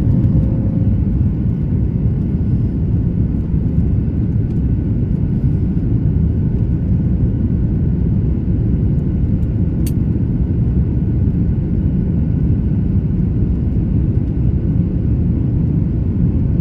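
Airplane cabin noise: a loud, steady low rumble inside the passenger cabin, with a single short click about ten seconds in.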